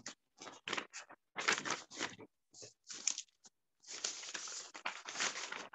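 Paper rustling in irregular bursts as pages are leafed through, with a longer stretch of continuous rustling from about four seconds in.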